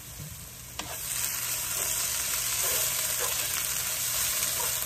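Food sizzling in a hot frying pan. A click comes about a second in, and after it the sizzle is louder and steady.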